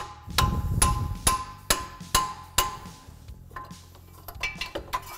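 A hammer taps the handle of a wrench six times, about two strikes a second, each with a short metallic ring, then a few lighter clicks. The taps drive the cooling fan's nut clockwise onto the water pump shaft to finish tightening it.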